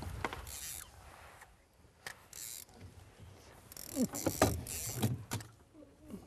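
Fishing reel being cranked in short bursts while a hooked fish is reeled in.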